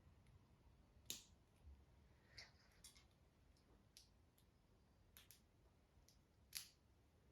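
Faint clicks of small plastic LEGO pieces being handled and pressed together, half a dozen separate clicks spread out, the sharpest about a second in and near the end.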